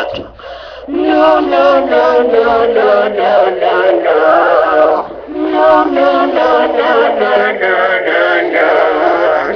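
A song: a singing voice over music, moving in short sung syllables. It breaks off briefly twice, once just after the start and once about halfway through.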